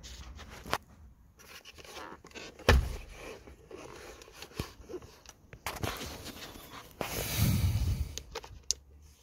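Handling sounds of a plastic car instrument cluster being turned over and its twist-in bulb holders worked by hand: scattered light clicks and rubbing, a sharp knock about three seconds in, and a longer scraping rustle around seven to eight seconds.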